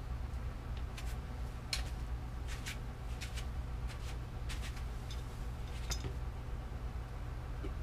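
Scattered light clicks and ticks of tools and small bicycle parts being handled, irregular and a few seconds apart, over a steady low hum.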